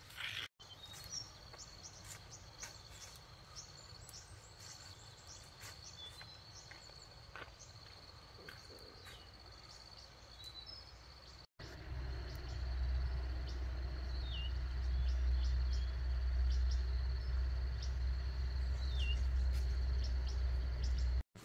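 Outdoor countryside ambience: a steady high insect drone with scattered ticks and bird chirps. About eleven seconds in, a louder low rumble takes over, with a few short falling bird chirps above it.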